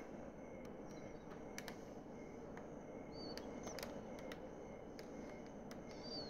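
Quiet room tone with scattered faint clicks and, about three seconds in, near four seconds and again near the end, a few short high chirps.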